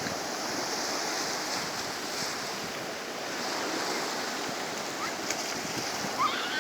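Sea surf washing steadily onto the shore, with strong wind blowing on the microphone. Near the end, children start squealing in high gliding cries.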